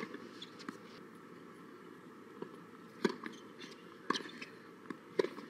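Tennis balls struck by racquets in a rally: a sharp pop roughly once a second from about three seconds in, with a lighter ball bounce on the hard court just before the last hit. There is also a single sharp knock right at the start, against faint steady outdoor ambience.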